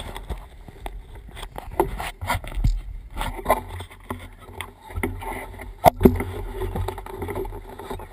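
Wind rumbling on the microphone, with irregular knocks and rubbing from the camera being handled. The sharpest knock comes about six seconds in.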